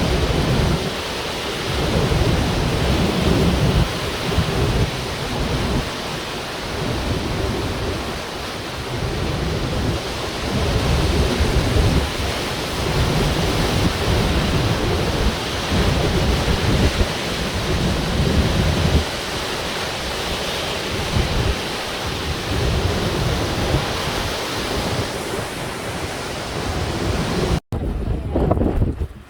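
Typhoon-force wind buffeting the microphone in gusts over heavy surf, a dense, loud roar of wind and crashing sea. Near the end it cuts off abruptly and gives way to mostly low wind rumble on the microphone.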